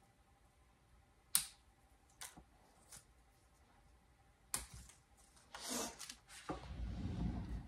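Small bonsai pruning shears snipping twigs of a Ficus benjamina: a few sharp separate clicks, the loudest about a second in. Near the end comes a brief rustle of leaves, then low handling noise.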